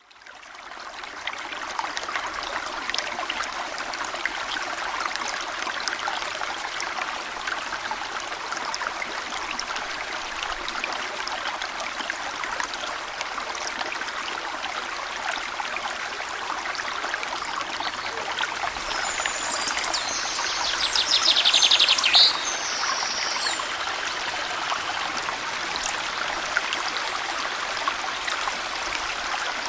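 Small stream flowing over stones, a steady babbling rush that fades in over the first second. About twenty seconds in, a bird sings a loud rapid trill for a couple of seconds, with a few faint chirps elsewhere.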